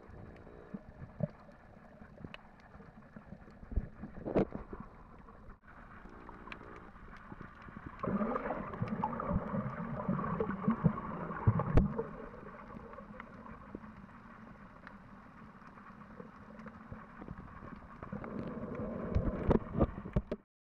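Water moving around an underwater camera housing, heard as a muffled rushing with scattered clicks and knocks. There is a brief drop-out about five and a half seconds in, and the sound is louder from about eight to twelve seconds in and again near the end.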